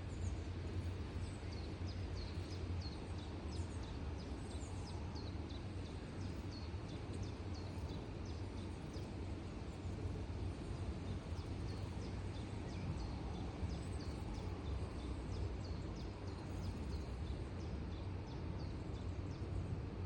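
Outdoor ambience: a steady low rumble with small birds chirping, many short high calls one after another.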